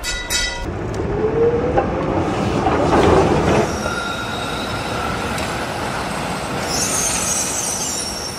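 Electric tram running along street rails, a motor whine rising in pitch as it gets going, then a high wheel squeal about seven seconds in.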